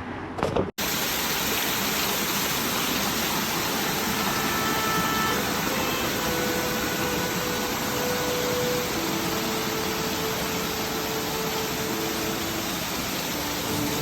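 Steady rushing of a waterfall, starting abruptly just under a second in. Faint held music tones come in under it from about four seconds in.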